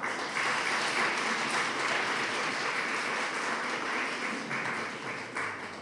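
Audience applauding, starting suddenly and easing off slightly after about four and a half seconds.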